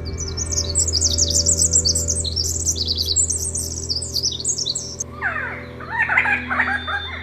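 Small birds chirping in rapid, high twittering phrases. About five seconds in these give way to a different bird's lower, arching calls. A soft, steady music drone runs beneath.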